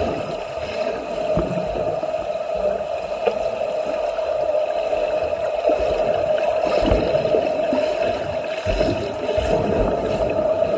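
Swimming-pool ambience: water splashing and churning from swimmers, over a steady hum, with occasional low bumps.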